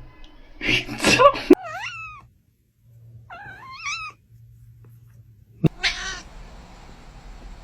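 An annoyed cat hissing and yowling: a harsh hiss about a second in, then wavering, gliding cries, a sharp click, and a second hiss near the end.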